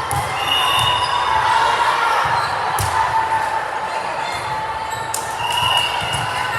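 Sports-hall ambience: crowd voices and shouting echo in a large hall, with a few sharp impacts of a ball, one about three seconds in and several about five seconds in.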